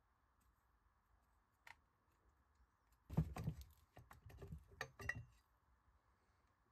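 A single faint click, then a cluster of sharp metallic clicks and knocks lasting about two seconds, loudest at its start, as the top coolant pipe is worked and pulled free of a Kawasaki ZX-7R inline-four's cylinder head.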